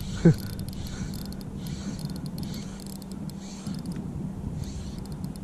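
Daiwa spinning reel being cranked to retrieve a metal spinner lure, a soft steady whir with faint rapid ticking. A short, loud sound sweeps down in pitch just after the start.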